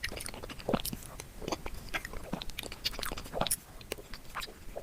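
Close-miked chewing and wet mouth sounds: irregular smacks and clicks, a few each second.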